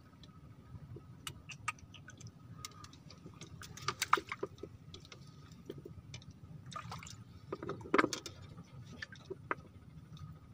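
Scattered small clicks and knocks of fishing rods and spinning reels being handled on a bamboo raft deck, with louder clusters about four and eight seconds in.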